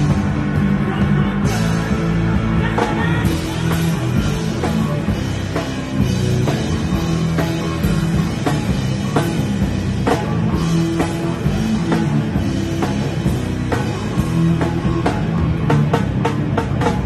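Live rock band playing loud: a drum kit with steady regular hits under an electric guitar.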